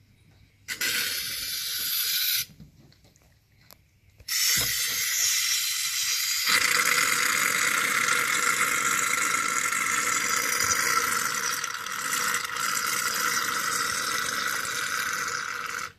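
Aerosol can of shaving foam spraying into a plastic bucket: one short hiss about a second in, then after a pause a long continuous hiss from about four seconds in to the end.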